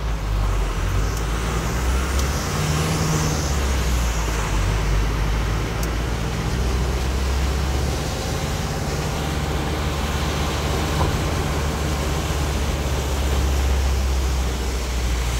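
A vehicle's engine running with a steady low rumble while driving, with the hiss of tyres on a wet road and rain, heard from inside the cab.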